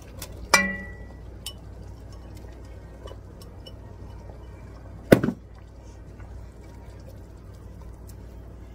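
A glass bowl clinks against the rim of an enameled cast-iron pot with a short ring as shredded chicken is scraped from it into the soup with a whisk. A sharper knock comes about five seconds in, with faint soft stirring and small clicks between.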